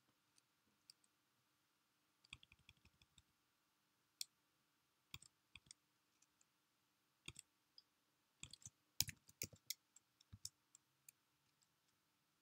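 Faint clicking of computer keyboard keys as text is deleted and retyped: quick runs of taps with single keystrokes between them.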